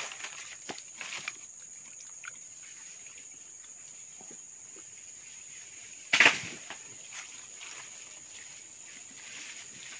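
Hands rustling and scraping through wet leaf litter and mud, with scattered light clicks early and one short, loud burst of noise about six seconds in. A steady high-pitched insect drone runs underneath.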